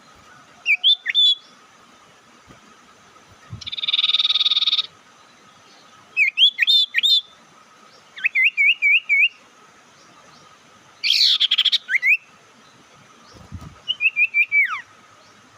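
Black-naped monarch (sirtu or mantenan) calling as a trapping lure: short bouts of quick, high, ringing whistled notes every few seconds, alternating with two harsh buzzy scolding calls. The harsh scolding calls are the loudest sounds.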